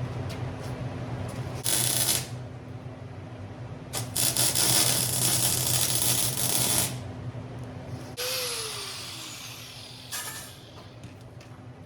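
Metalworking power tools on steel: three harsh hissing bursts, the middle one about three seconds long. Just past halfway a tool comes on and spins down with a falling whine, all over a steady electrical hum.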